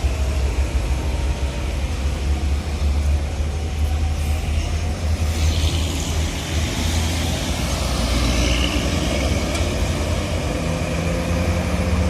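Diesel bus engine running close by with a deep, steady rumble amid road traffic noise, a tone in the engine note rising slightly near the end.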